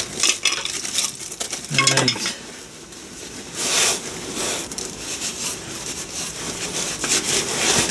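Rustling of a cloth rag handled by hand, with scattered light clicks and clinks of small parts.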